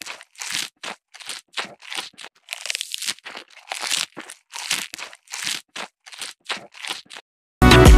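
Crisp crunching and tearing of fresh green leaves in short separate bursts, about two a second, like an animal chewing leafy fodder. Music starts suddenly near the end.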